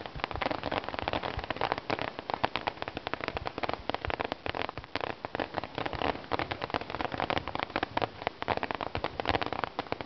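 Fireworks crackling: a dense, continuous stream of small sharp pops in quick succession, with no big bangs.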